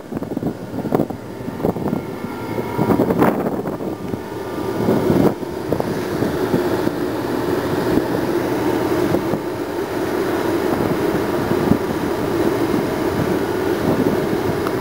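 Wind buffeting the microphone on the open deck of a car ferry, over the steady drone of the ship's engines. The gusts ease after about five seconds, leaving an even rumble.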